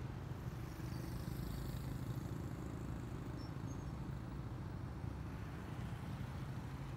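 Road traffic passing through a city intersection: cars and motorcycles driving by with a steady low engine and tyre rumble, a little louder about two seconds in as a vehicle passes close.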